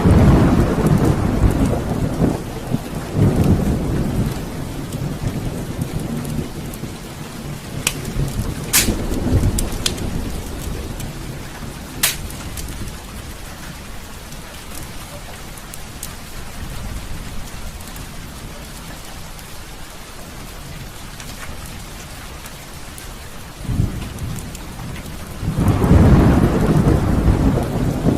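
Heavy rain falling steadily, with thunder: a long rolling rumble at the start that fades over several seconds, and another that builds near the end. A few sharp snaps come in between.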